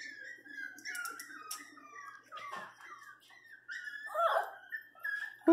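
Miniature pinscher whining and whimpering in soft, high, wavering bursts, with a louder whine about four seconds in and a loud cry starting at the very end.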